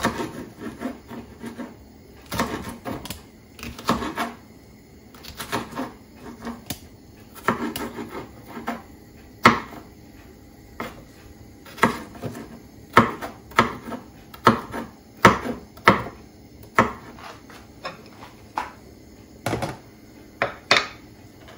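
Kitchen knife chopping a red bell pepper on a wooden cutting board: irregular sharp knocks of the blade hitting the board, coming faster and louder in the second half. Near the end a wooden spatula scrapes the cut pieces together on the board.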